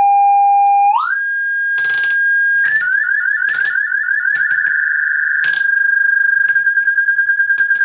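Brüel & Kjær Type 1022 beat frequency oscillator sounding a steady electronic tone with faint overtones, which jumps up about an octave about a second in. From about three seconds the pitch warbles fast under its frequency modulation for a couple of seconds, then the tone holds steady with a rapid pulsing, with a few short clicks along the way.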